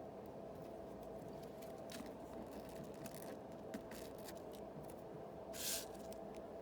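Yu-Gi-Oh trading cards and booster-pack wrappers being handled: faint scattered clicks and scratches, then a short scraping swish near the end, over a steady low hum.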